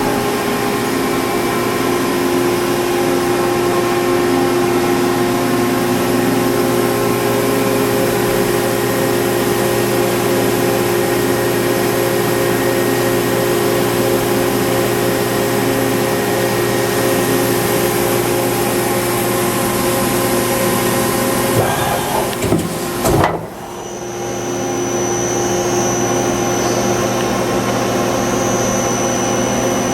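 Miyano JNC-45T CNC lathe running, a steady mechanical hum of several constant tones with a hiss over it. About three-quarters of the way through there are a few knocks and a brief drop in level, then the hum builds back with a thin high whine added.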